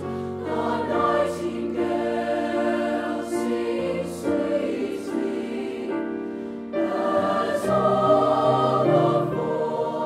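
Mixed-voice middle school choir singing held chords. The voices thin out and dip briefly just before seven seconds in, then come back in fuller and louder.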